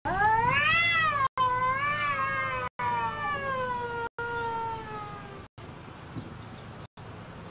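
Cat yowling at another cat in a territorial standoff: one long, drawn-out yowl that rises for about a second, then slowly sinks and fades out about five seconds in. The sound cuts out briefly several times.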